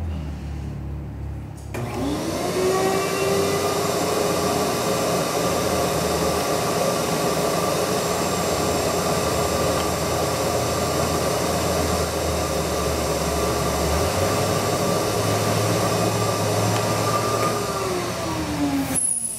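Shop-Vac wet/dry vacuum switched on about two seconds in, its motor whine rising to speed. It runs steadily as it sucks the last air out of a deflated inflatable culvert plug through a hose on the plug's valve, then is switched off near the end and winds down with a falling pitch.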